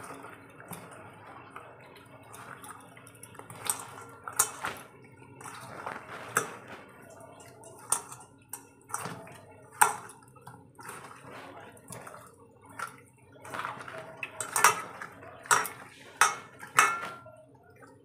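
Hand-mixing pieces of rohu fish with turmeric and salt in a stainless steel bowl: irregular clinks and knocks of fish and hand against the steel, thickest over the last few seconds.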